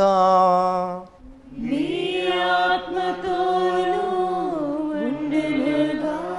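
A priest's chanted liturgical greeting ends on a held note over a steady low drone. After a brief pause, a choir sings the response, several voices together.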